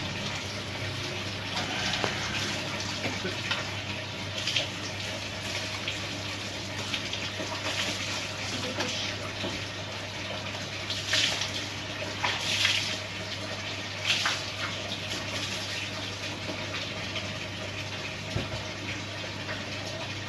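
Water poured from a plastic bucket over a dog's head and back, splashing and dripping onto a tiled floor, with several louder gushes, over a steady low hum.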